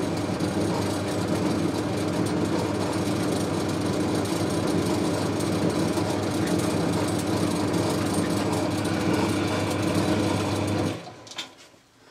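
Boxford lathe running with a knurling wheel pressed into the turning bar, rolling a diamond knurl onto its edge: a steady machine hum with a dense rattle over it. About eleven seconds in the lathe is switched off and runs down, followed by a couple of light clicks.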